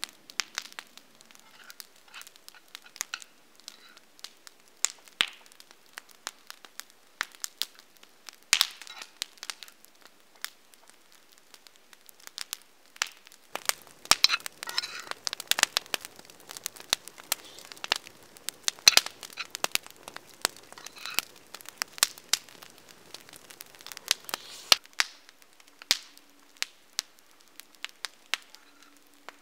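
Wood campfire crackling, with irregular sharp pops that come thicker for several seconds midway.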